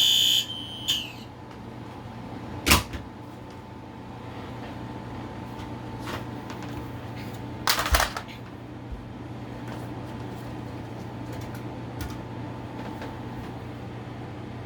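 A smoke alarm's high-pitched beeping cuts off within the first half second, leaving a steady low hum. A sharp knock comes a few seconds in, a louder double knock about eight seconds in, and a few faint clicks between.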